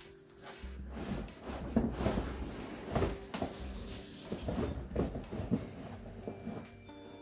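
A 150-pound boxed subwoofer being eased down a flight of stairs: irregular bumps, knocks and cardboard scraping as the heavy box slides and lands step by step.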